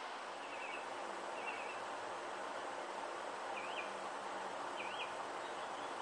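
Homemade 12 V DC box fan, driven by a car radiator fan motor, running at about 30 watts with a steady rush of air. A bird chirps about five times in the background.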